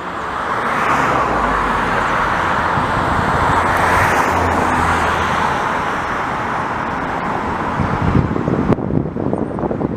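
Jet airliner passing low overhead: a broad engine roar that swells to its loudest about four seconds in and then eases off. Wind gusts on the microphone near the end.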